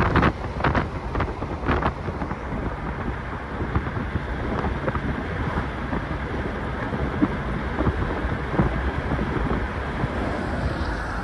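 1962 Corvette C1 Fuelie's fuel-injected 327 V8 running at cruising speed, heard from inside the cabin together with steady road and wind noise. Wind buffets the microphone in a few sharp thumps during the first two seconds.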